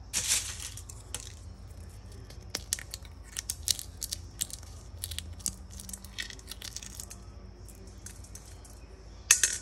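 Dry parchment shells of green coffee beans cracking and crackling as they are crushed and rubbed off between the fingertips by hand: a run of short, sharp crackles, with louder rustling bursts at the start and near the end.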